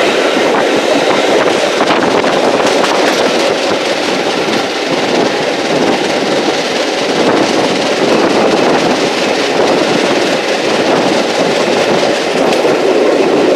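Steady running noise of a steam-hauled passenger train heard from on board, its carriage wheels rolling over the rails.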